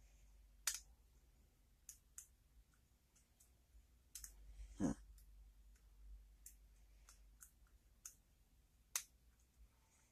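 Faint, scattered clicks of a lock pick and tension wrench working the pins inside a Steel Pinnings challenge lock, with one louder, duller knock about halfway through.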